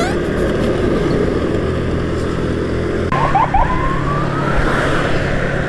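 Automatic motor scooter's engine running steadily under road noise, then revving up about three seconds in, its pitch rising as it accelerates.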